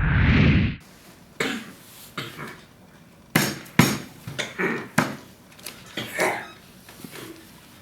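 A loud rushing sound that cuts off sharply in the first second, then a run of irregular sharp knocks and clatters.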